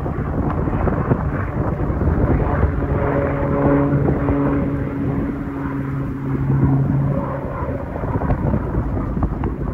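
Propeller drone of a low-flying single-engine firefighting plane on floats as it passes, a steady hum that is strongest from about two to seven seconds in. Throughout, heavy wind rumble on the microphone sits underneath it.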